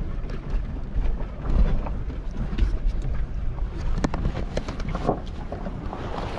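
Four-wheel drive driving over a rough dirt track, heard inside the cab: a heavy low rumble of engine and tyres with wind noise, and sharp rattles and knocks about four to five seconds in.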